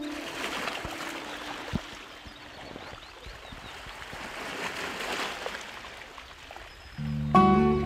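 Running water like a flowing stream, a steady gurgling rush, in a break between pieces of calm instrumental music; the music comes back near the end.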